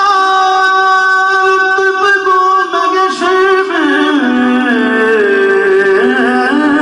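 A man singing a naat into a microphone. He holds one long, steady note for about three and a half seconds, then his voice slides up and down through ornamented turns.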